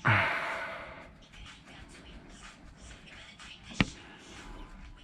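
A loud, heavy exhale like a frustrated sigh at the start, fading over about a second. Then quiet handling noise and a single sharp click almost four seconds in.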